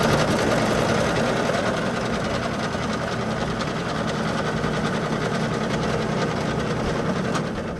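Electric bread slicer running steadily as it cuts through a loaf, a dense mechanical buzz with a fast, even rattle. It starts suddenly and carries on until the music returns.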